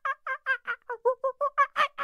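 A rapid string of short, pitched animal calls, about six a second, dipping lower in pitch around the middle and growing louder toward the end.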